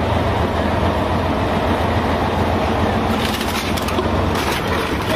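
Kirovets K-700 tractor's diesel engine running steadily under load as the tractor rolls onto a car; from about three seconds in, a run of sharp cracks and crunches as the car's body is crushed under the tyres.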